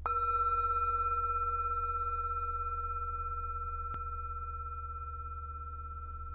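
Tibetan singing bowl struck once, ringing with a clear main tone and several higher overtones that fade slowly, with a gentle wavering in level. A low steady hum runs underneath, and a faint click comes about four seconds in.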